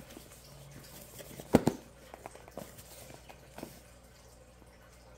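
Cardboard retail box being handled and worked open: one sharp click about a second and a half in, then a few lighter clicks and taps.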